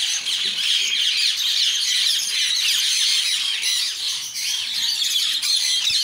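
A mixed flock of small parrots in an aviary (parakeets, cockatiels and conures) chattering all at once: a dense, continuous din of overlapping high chirps and screeches.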